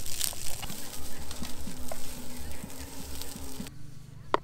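Fried rice sizzling in a frying pan while a spatula stirs and scrapes it, with small ticks of the spatula against the pan. The sizzle cuts off suddenly near the end, and a single sharp click follows.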